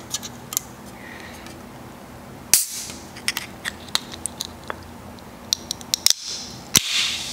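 Aluminium soda can being opened by its pull tab: small clicks and taps on the tab, then sharp pops about two and a half seconds in and near the end, each followed by a brief fizzing hiss.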